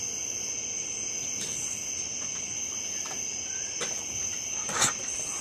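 Steady chorus of crickets and other night insects, a constant high-pitched trill, with a short sharp click-like sound, the loudest moment, about five seconds in.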